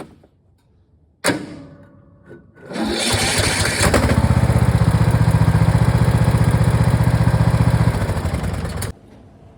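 Cub Cadet lawn tractor's Kohler engine being cranked over on the starter for about six seconds, a steady rhythmic pulsing that stops abruptly, struggling to start. The owner puts the hard starting down to valves out of adjustment. A sharp clank comes about a second in, before the cranking.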